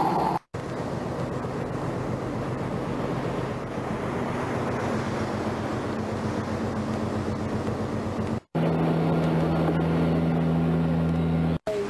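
Engine drone and rushing noise heard aboard the craft filming a sea chase, broken by two short dropouts where the footage is cut. First comes a noisy rush over a low engine hum. From about 8.5 s a steadier, louder engine drone with a strong low hum runs for about three seconds.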